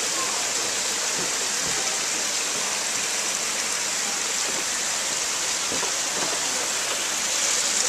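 Steady rush of falling and running water, as from a waterfall and stream feeding a pond.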